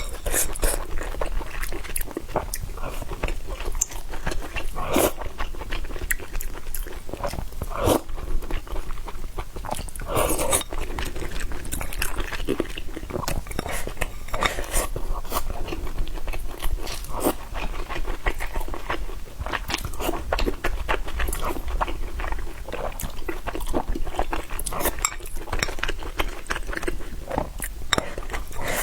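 A person chewing and biting food close to the microphone, mukbang-style, with many short, sharp crunching clicks.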